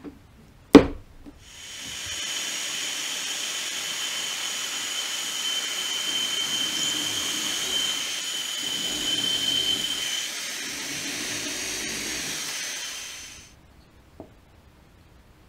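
A sharp knock, then a drill boring a pocket hole through a wooden pocket-hole jig while a vacuum dust extractor draws off the chips: a steady hiss with a high whine that builds over a second, grows a little louder partway through, and fades away after about twelve seconds, the higher whine dropping out shortly before.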